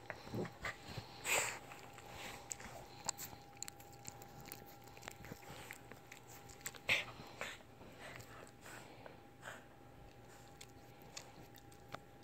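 Lhasa Apso mouthing and nibbling a person's hand, with soft snuffles and rustling. The sounds are faint and scattered, the loudest about seven seconds in.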